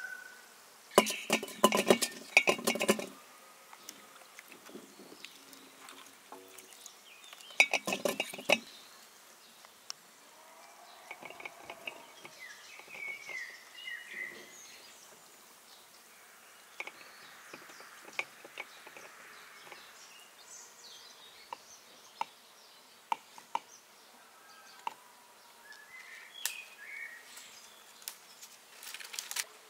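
Kitchenware clinking in two short bursts of rapid knocks, one about a second in and one near eight seconds, with lighter single clinks between. Birds chirp now and then in the background.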